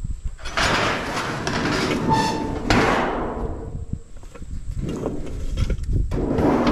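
Sheet-metal scrap scraping and clanking as a flat appliance panel is dragged out of a pile of metal junk. About two seconds in there is a brief metallic ring.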